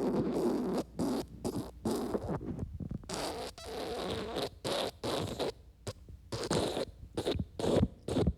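Human wet farts: a long string of separate bursts with short gaps between them, with a longer, unbroken stretch about three seconds in and shorter, quicker blasts near the end.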